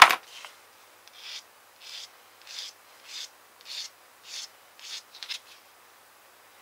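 A sharp knock, then a sanding stick rubbed back and forth over a small plastic kit part in about eight even strokes, a little under two a second, smoothing off the sprue nubs on a fragile propeller blade.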